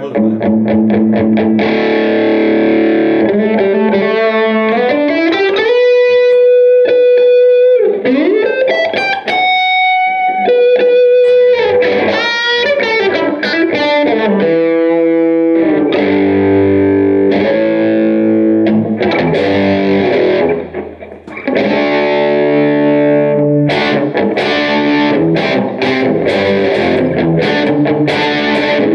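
James Tyler Variax JTV-69 electric guitar played through a Line 6 Spider Valve MKII on its Crunch Blue model, an Orange AD30TC emulation, boosted by a Tube Screamer: a crunchy overdriven lead with notes bent up and held, a short break about two-thirds through, then fast strummed chords near the end.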